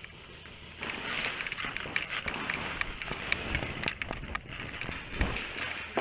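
A paintball player running, with footsteps and gear rattling close to the microphone, starting about a second in. Sharp, irregular pops of .50 caliber paintball markers are heard among them.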